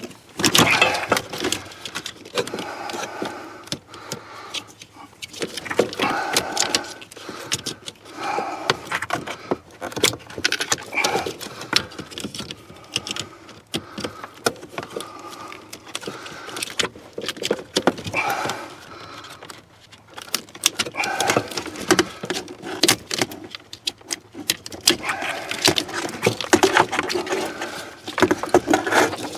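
Wiring harness and plastic connectors rattling and clicking as the harness is unplugged and pulled out from behind a car's dash, with a run of uneven clatters and snaps.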